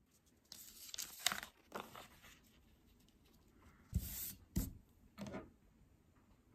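Paper rustling and sliding as a printed paper cutout is handled on a tabletop, in short bursts. About four seconds in come a few dull thumps as hands press it flat.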